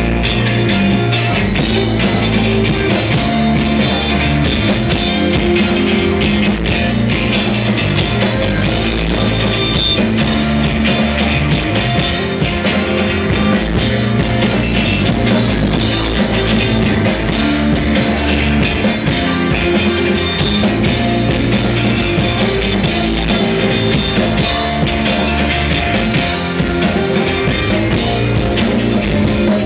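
Loud rock music played by a band, with guitar and drums, going without a break.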